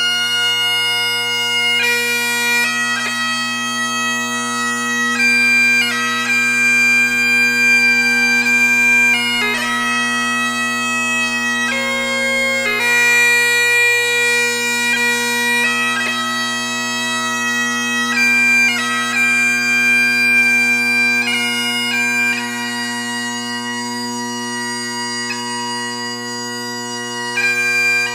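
Bagpipe music: a steady low drone held under a chanter melody that steps from note to note every second or two.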